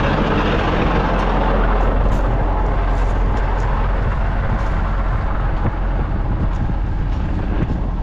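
Case IH Quadtrac tractor running steadily while driving across the field, a constant low engine drone.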